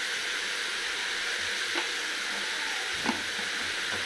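Diced potatoes and onions frying in mustard oil in an open aluminium pressure cooker: a steady sizzling hiss, with two light taps a little under two and about three seconds in.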